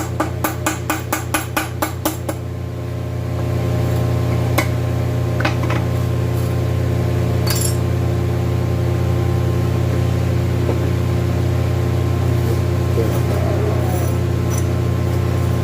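A steady mechanical hum with rapid metallic taps, about four a second, for the first two seconds. A few separate metal clinks follow later.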